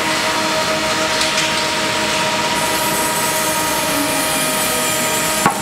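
Steady running noise of cooperage workshop machinery, with a constant hum under it. A single sharp click comes near the end.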